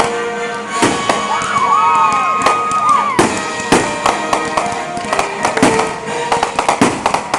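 Fireworks display: shells launching and bursting with repeated sharp bangs and crackling, and a wavering whistle from about one to three seconds in.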